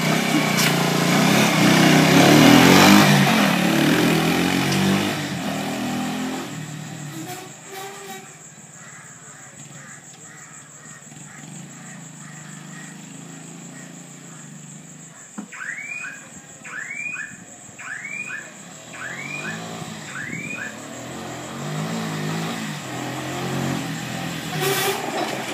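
Motorcycle-and-sidecar engine revving as it pulls away, then fading into the distance. In the last few seconds it comes back, growing louder as it approaches.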